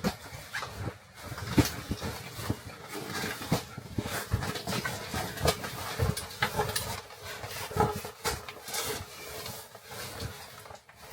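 Rustling and irregular knocks of bicycle pannier bags and gear being handled and stacked up.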